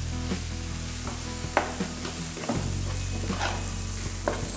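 Steel ladle stirring and scraping chilli powder and turmeric through onion-tomato masala sizzling in oil in a large metal pan, with several short clinks and scrapes of the ladle against the pan, over a steady low hum.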